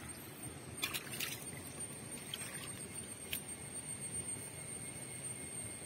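Shallow stream water trickling steadily over rocks, with a few brief clicks about a second in and again past three seconds, and a thin steady high-pitched tone above it.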